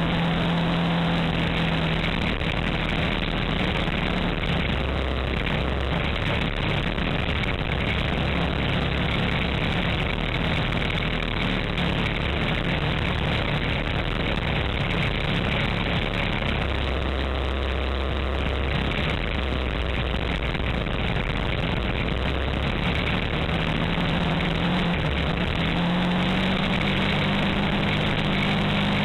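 Kawasaki Teryx4 UTV's V-twin engine running while under way on a dirt road, with steady wind and tyre noise through the open cab; the engine note rises near the end.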